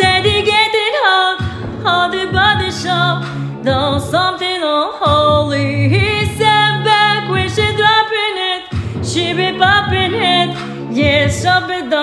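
Music: a woman's voice singing a wordless melody that glides up and down, with accompaniment underneath.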